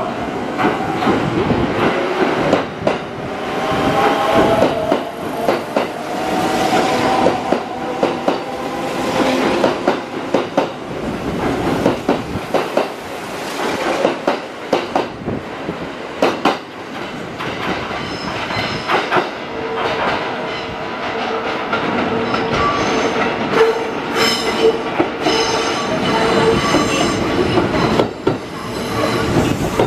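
Kintetsu electric trains at a station platform. In the first half a departing 3200-series train's wheels clatter over rail joints and its motors whine upward in pitch. From about twenty seconds in, another train comes in with a steady whine and high-pitched wheel and brake squeal over the continuing clatter.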